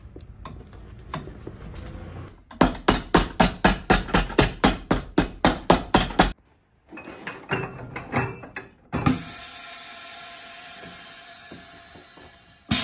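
Cobbler's hammer striking a freshly glued leather sole on a boot to bed it down, in a rapid run of about four blows a second, then a few slower taps. A steady hiss follows for the last few seconds.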